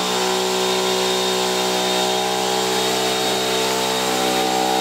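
Air compressor motor running steadily: an even buzzing drone with a thin high whine over it, as it supplies the air hose being used on the tyres.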